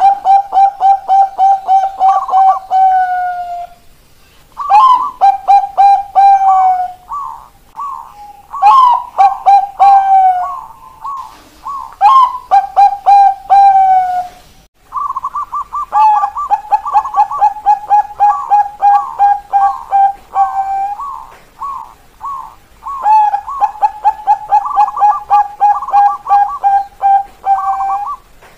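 Zebra doves of the Bangkok perkutut strain singing: phrases of rapid staccato cooing notes, each opening on a higher note and dropping into a fast run of lower 'kok' notes. The phrases last a few seconds each and repeat about six times with short pauses between.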